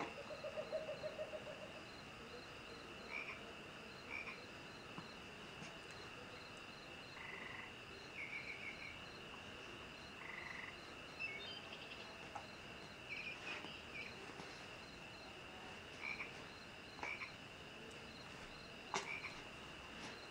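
Faint recorded nature sounds from a baby's crib mobile: frogs croaking in short repeated calls about once a second over a steady high insect drone and a regular cricket-like chirping pattern.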